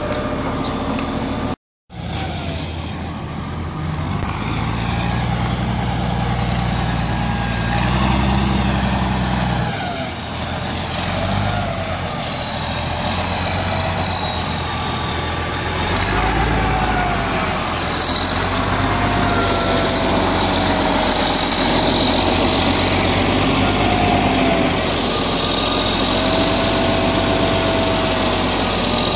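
Large wheel loader's diesel engine running under load, a steady heavy rumble with a whine that wavers up and down in pitch.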